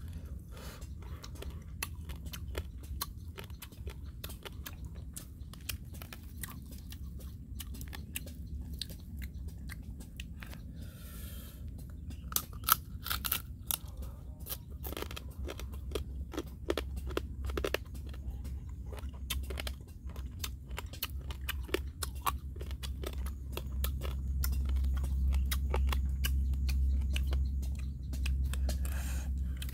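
Close-up chewing and crunching of grilled crab shell, with many small crisp cracks and clicks throughout. A low rumble swells near the end.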